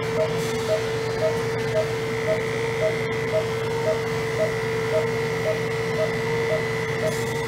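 Electric animal hair clippers fitted with a #40 blade, running steadily with a constant hum as they shave a dog's abdomen close to the skin. A short beep repeats about twice a second from a patient monitor.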